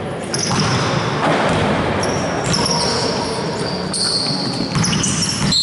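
Basketball game sounds in a large echoing gym: a ball bouncing on the hardwood court and sneakers giving short, high squeaks as players run and turn.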